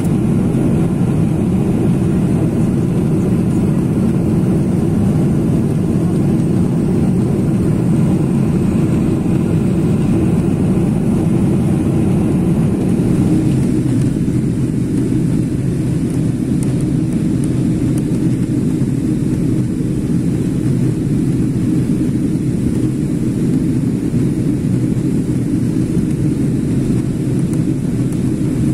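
Steady low rumble of jet engines and rushing air, heard inside the cabin of a Boeing 777-300ER in flight. About halfway through the higher hiss drops slightly and the rumble carries on.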